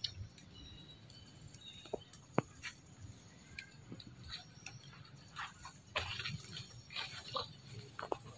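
Dry leaves rustling and scattered light clicks and crackles as monkeys forage and shift about in leaf litter. There are a few sharp ticks early on and a denser run of rustling in the second half.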